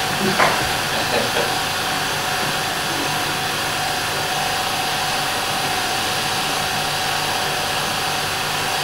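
8mm cine projector running: a steady mechanical whirr with fan noise and a faint constant hum, a few light clicks in the first second or so.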